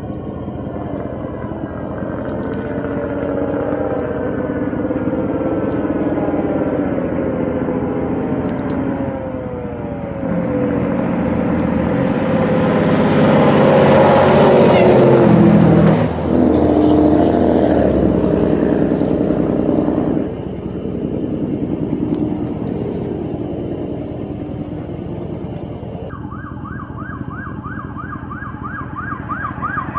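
Hollywood VFD Engine 72's fire engine siren wailing as it approaches. Engine and road noise grow loud as it passes, about halfway through, then fall away. Near the end a second emergency vehicle's siren comes in with a fast yelp, growing louder.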